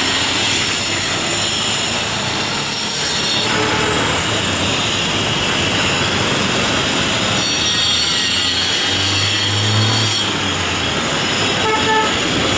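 Loud, steady street din of traffic, with a high, thin screeching whine held above it.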